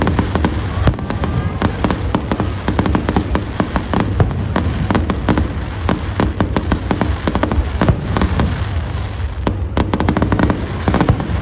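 Fireworks going off in a rapid, continuous barrage: dense crackling from many bursts over a steady low rumble of booms.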